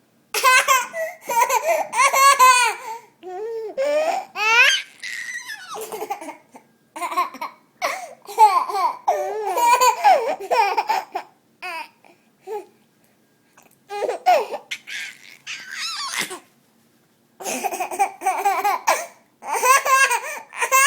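A young child laughing in hiccuping bursts, high-pitched laughs tumbling out in runs, with a couple of short pauses.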